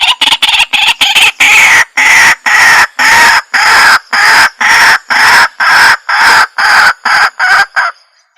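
White-breasted waterhen calling: a loud series of harsh repeated notes, quick at first, then slowing to about two a second while falling gradually in pitch, and breaking off near the end.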